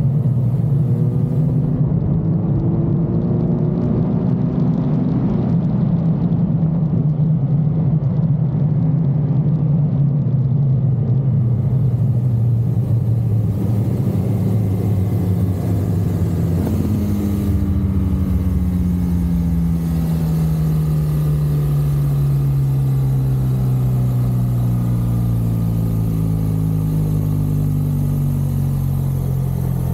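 BMW R1200 GSA's boxer-twin engine running under way, with wind and road noise. About halfway through the engine note rises sharply, then falls slowly and steadily over the rest as the bike slows.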